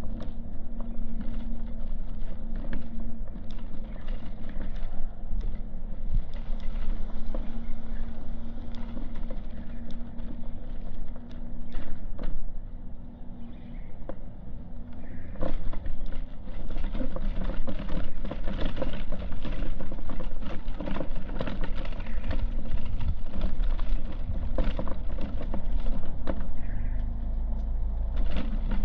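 Outdoor street sounds: a steady low hum for the first half, under scattered small knocks and clicks. About halfway through these thicken into louder, continuous crackling and knocking, and wind rumbles on the microphone near the end.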